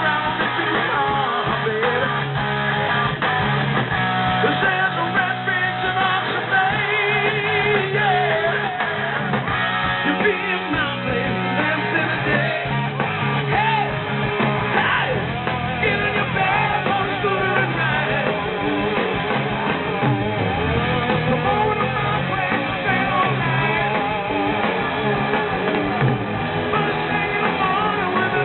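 Live rock band playing, with electric guitar and a male lead vocal.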